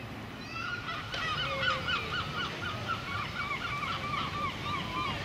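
Geese honking: a rapid, overlapping run of short calls from several birds, starting about a second in.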